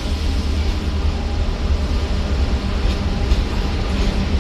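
Steel freight train hauled by diesel locomotives passing: a steady low rumble, with a few faint clicks in the second half.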